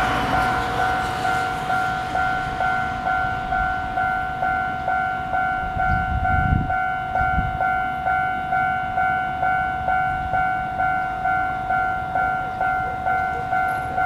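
Railway level-crossing warning bell ringing on and on, two steady tones struck about twice a second, as the barriers rise after a train has passed. The rumble of the train dies away in the first second, and a short low rumble comes about six seconds in.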